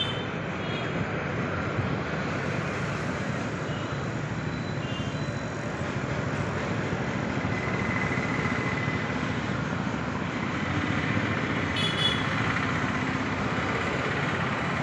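Steady road traffic noise, with a brief high tone about twelve seconds in.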